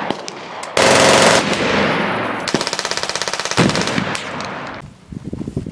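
Automatic gunfire: a loud blast about a second in, then a rapid, even burst of shots around 2.5 to 3.5 seconds in, ending in a final bang that dies away by about five seconds.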